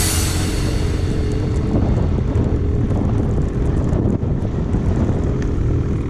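Snowmobile engine running steadily under way, a continuous drone with a steady hum.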